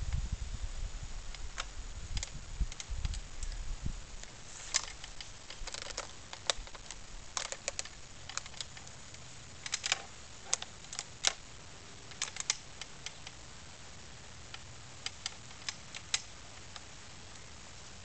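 Downy woodpecker pecking at suet in a wooden suet sandwich feeder: sharp, irregular taps, often in quick runs of two or three, that stop a couple of seconds before the end.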